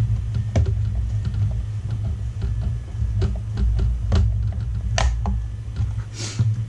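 A small screwdriver working the screws of a plastic touchscreen housing, snugging them and backing them off: scattered sharp clicks and taps, with a short scrape near the end, over a steady low hum.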